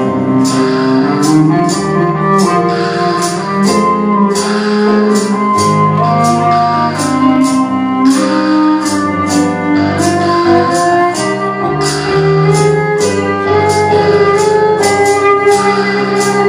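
Live band playing an instrumental passage, with an upright double bass carrying the low line over a steady percussive beat.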